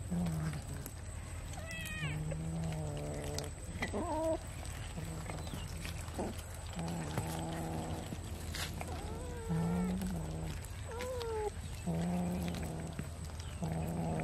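Domestic cats growling and yowling over a piece of raw fish, in low drawn-out calls about a second long every couple of seconds. Short meows that slide up or down in pitch come in between them.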